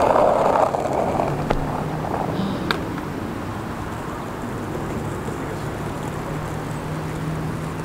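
Wind on the microphone over a steady low hum, with a couple of faint ticks early on.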